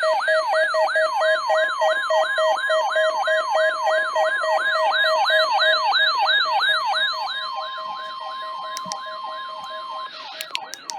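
Weather alert radio sounding its siren alarm for a NOAA Weather Radio weekly test: a fast, repeating falling whoop, about three a second. Under it, from about a second in until near the end, runs the station's steady 1050 Hz warning alarm tone. The whoop fades a little in the last few seconds.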